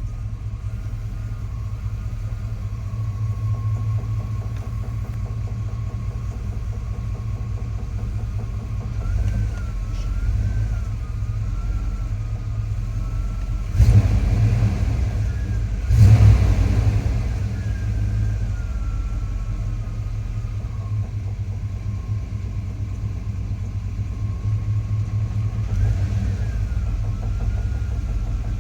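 1988 C1500 pickup's engine idling with a knocking noise, the knock that comes when the manual clutch is almost fully let out on an incline and goes away with the pedal pushed in. Two louder thumps come about 14 and 16 seconds in, and a faint wavering whine runs under the idle.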